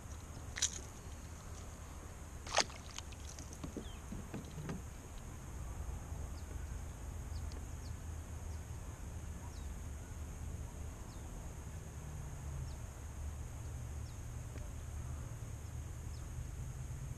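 Low steady rumble of a sit-on kayak moving on calm water, with two sharp clacks in the first three seconds while a small bass is unhooked.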